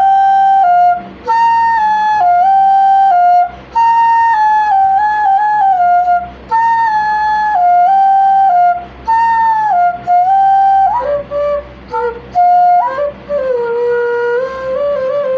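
Music: a solo flute playing a melody in phrases of two to three seconds, with short breaks between them. The tune moves to lower notes in the last few seconds.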